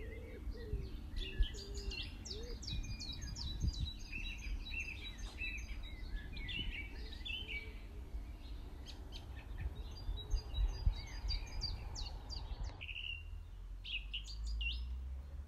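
Garden birds singing and chirping, many quick high chirps and short trills, a few lower calls near the start, over a steady low background rumble.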